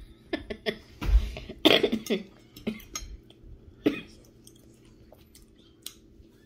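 A person coughing several times, loudest between about one and two seconds in, with a few lighter coughs after and some small clicks before.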